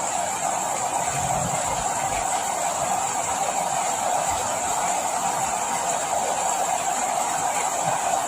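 Steady rain, an even hiss of falling drops with no let-up.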